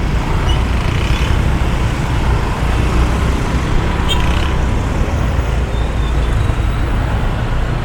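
Steady low rumble of motor traffic and engine noise in a slow-moving traffic jam.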